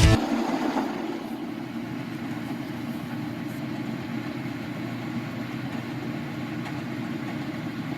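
Metal lathe running steadily, turning a shaft, with an even mechanical hum.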